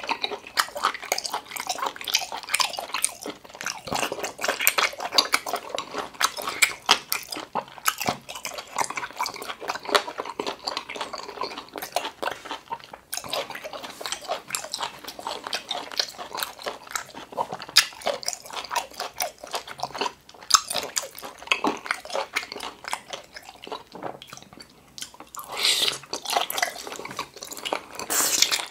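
Close-up wet chewing and mouth smacking of cooked large octopus, with irregular squelchy clicks throughout. A slurp comes near the end as a thin piece is sucked into the mouth.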